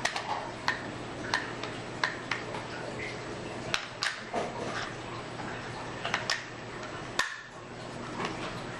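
Irregular small clicks and taps, about a dozen sharp ones spread unevenly, from hands handling a TI-Nspire calculator and its batteries, over a faint steady hum.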